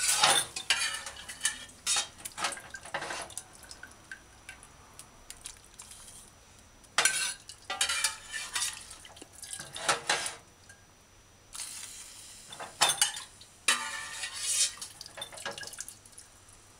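Metal ladle clinking against a stainless steel saucepan, with liquid splashing and dripping as curry broth is ladled into the pan. The sound comes in several short bursts with quiet gaps between them.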